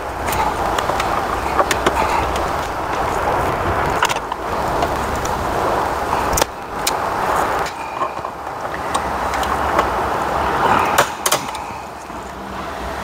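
Plastic dashboard trim being pried loose with a hand tool: scraping and sharp plastic clicks as stubborn clips on the A/C duct and bezel are worked free, over a steady background noise.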